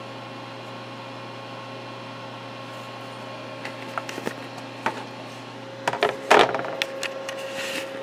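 Steady electrical hum with a few held tones. Over it come scattered light clicks and knocks of parts and tools being handled on the workbench, one louder knock about six seconds in, and a short rustle near the end.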